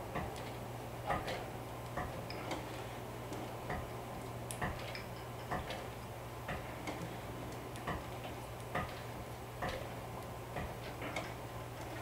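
Industrial sewing machine turned slowly by hand at its handwheel, its needle and mechanism clicking once per stitch about once a second, unevenly, over a steady low hum.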